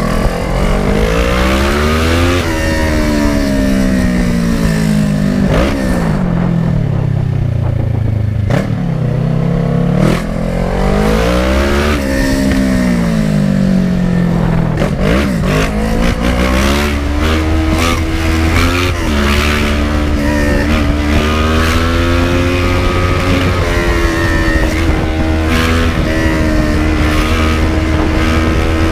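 Kawasaki ER-6n's 649 cc parallel-twin engine running loud on the move, its revs rising and falling over and over as the rider accelerates and backs off through traffic.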